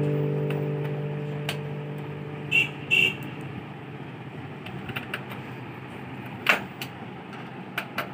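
An acoustic guitar chord, strummed just before, rings on and fades away over the first three seconds. Two short high toots come near the end of it. After that there is only a low steady hiss with a few scattered clicks.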